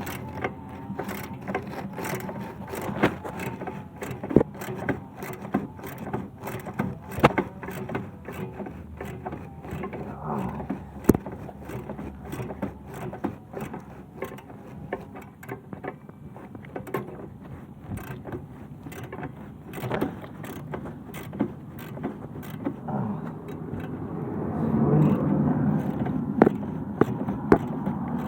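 Hand socket ratchet clicking in quick irregular runs, with metal tools clinking, as bolts are worked loose on the engine. A louder low rumble swells near the end.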